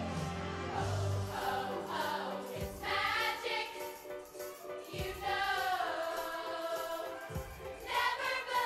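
A large chorus of women singing in harmony with musical accompaniment: low instrumental notes under the voices at the start, and low thuds about every two and a half seconds.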